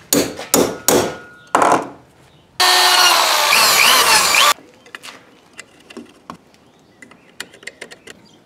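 Four sharp hammer taps on a punch marking aluminium flat bar, then a hand drill running for about two seconds as its bit cuts through the aluminium. Light clicks and knocks of parts being handled follow.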